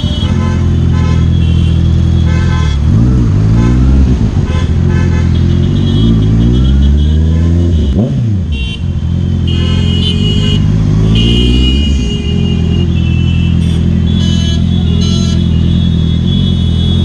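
Honda CBR650R inline-four with an aftermarket Ixil L60 full-system exhaust, running at low speed in stop-and-go traffic. Several throttle blips make the engine note rise and fall, the sharpest about eight seconds in. Vehicle horns honk briefly at several points around it.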